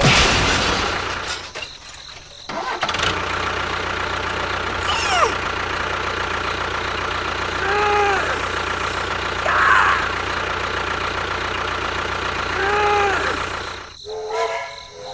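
Engine running steadily. A falling whistle-like glide comes about five seconds in, two short rising-and-falling tones come later, and a held horn-like tone sounds near the end.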